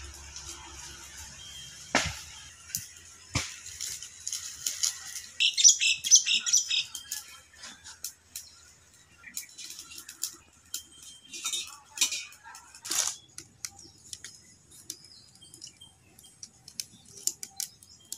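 Dry twigs and sticks being handled, snapped and pushed into a wood fire in a clay stove: a run of sharp snaps, rustles and knocks, with two hard knocks a second and a half apart near the start and a louder dense spell of crackling about six seconds in.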